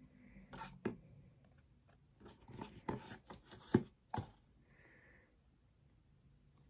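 Trading cards being handled at a desk: a scattering of light slides, rubs and clicks of card and plastic, most of them between two and four seconds in.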